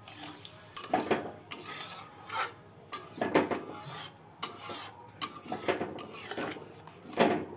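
A metal spoon stirring a thin curry gravy in a metal cooking pan, knocking and scraping against the pan in irregular strokes about once or twice a second.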